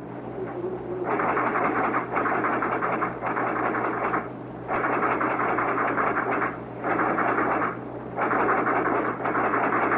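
Rapid mechanical clattering from fire-alarm-office telegraph equipment, in four bursts of one to three seconds with short breaks between them, starting about a second in, over a steady low electrical hum.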